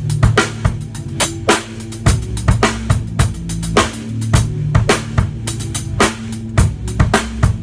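Acoustic drum kit played in a steady groove of bass drum, snare and cymbal hits, over a recorded hip-hop track with a deep, held bass line.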